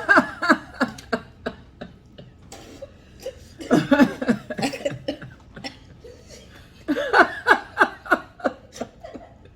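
People laughing in three bursts of quick, repeated pulses, with quieter gaps between them.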